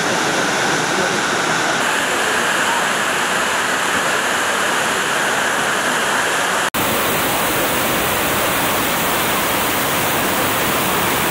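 River water rushing over rocks in white-water rapids, a steady loud rush with a split-second break about two-thirds of the way through.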